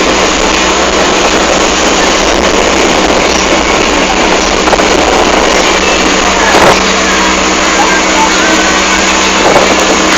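Motorboat engine running at a steady pitch under a loud, even rush of wind and water noise.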